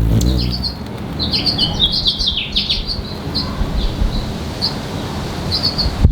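Hummingbird chirping: short, high chips repeated throughout, with a quick run of chirps stepping down in pitch between about one and two and a half seconds in, over a low rumble.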